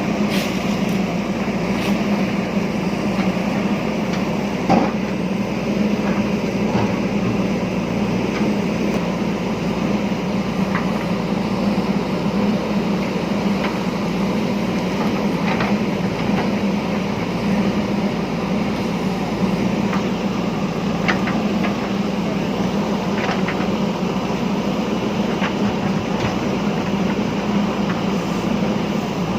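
JCB backhoe loader's diesel engine running steadily under working load, with scattered sharp knocks, the loudest about five seconds in.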